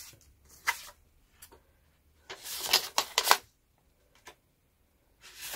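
Clear plastic binder pockets and a paper banknote rustling and crinkling as the note is slipped into a pocket, in a few short bursts, the loudest a little over two seconds in.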